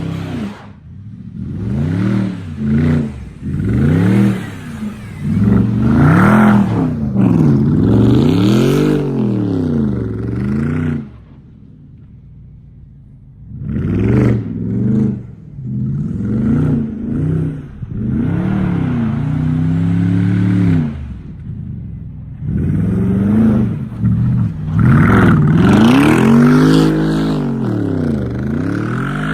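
BMW X5 4.4i's 4.4-litre V8 with its muffler deleted, revving hard again and again, the exhaust note rising and falling with each rev. It drops away for a few seconds near the middle, then revs up again.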